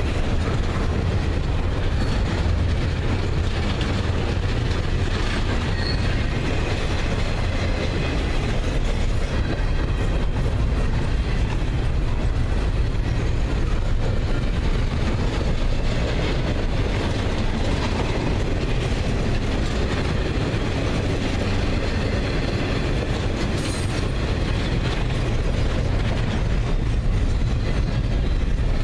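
Doublestack intermodal well cars rolling past at about 25 mph: a steady rumble and clatter of steel wheels on the rails.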